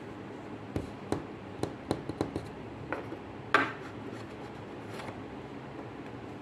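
A run of about ten light clicks and knocks over two or three seconds, ending in one louder knock, over a steady low hum.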